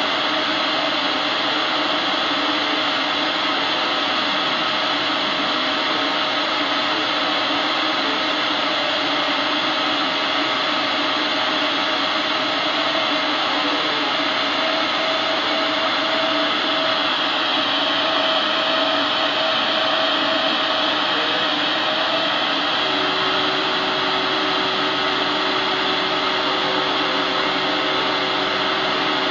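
Epilog Mini 24 CO2 laser cutter running while it cuts 3 mm wood: a steady rushing hiss of moving air, with faint whining tones that change as the laser head travels over the sheet.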